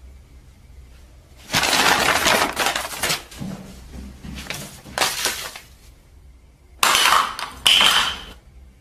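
Papers and small objects knocked off a coffee table: several loud crashing, clattering and rustling bursts. The first is long, a short one follows, and two come close together near the end.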